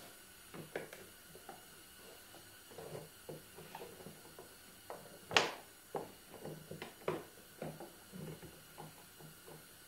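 Scattered small plastic clicks and knocks as the air filter cover of a Predator 3500 inverter generator is worked loose from its clamp, with one sharper click about halfway through.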